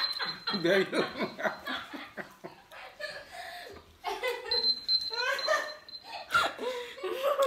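A girl laughing in short, breathy bursts that die down partway through and then start up again.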